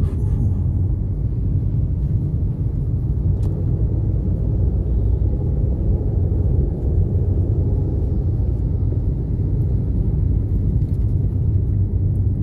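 Steady low rumble of a car being driven: road and engine noise heard from inside the cabin.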